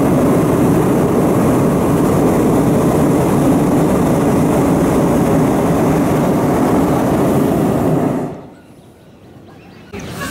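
Hot-air balloon's propane burner firing overhead: a loud, steady roar that shuts off about eight seconds in.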